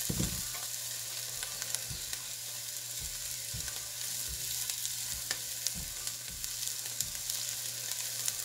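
Diced onion, carrot and garlic sizzling steadily in butter and olive oil in a nonstick pot, stirred with a spatula that scrapes and taps against the pan now and then.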